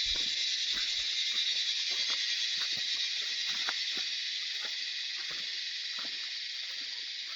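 Steady, high-pitched insect chorus, with a few faint clicks beneath it.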